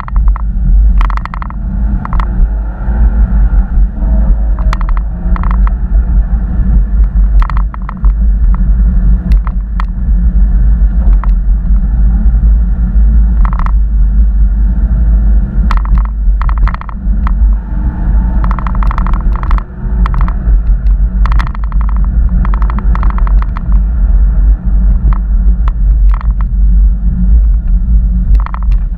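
GoPro Hero 4 Black Wi-Fi interference noise: a loud, steady low 'helicopter' rumble with irregular 'ticking' clicks through it, over the sound of a 2013 Porsche Boxster. The noise is caused by recording with the camera's Wi-Fi switched on.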